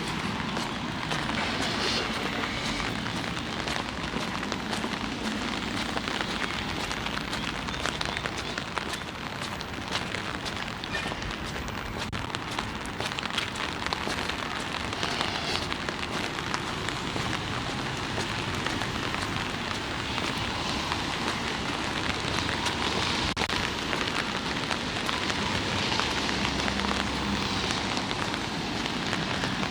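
Steady rain drumming on an umbrella overhead, a dense crackle of drops.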